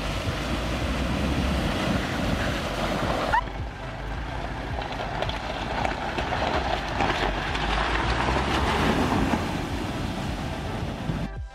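Pickup truck driving through deep puddles, its engine running under loud splashing and spraying water. The sound breaks off sharply about three seconds in and picks up again with another pass through the water.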